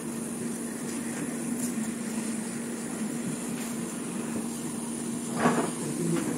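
Handheld hot-air gun running steadily, its fan blowing with a constant hum and airy hiss as it heats the phone's glass back to soften the adhesive. A brief louder thump about five and a half seconds in.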